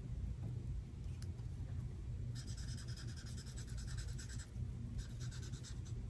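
Alcohol blend marker scribbling on paper: a run of quick back-and-forth strokes for about two seconds in the middle, then a shorter run about five seconds in.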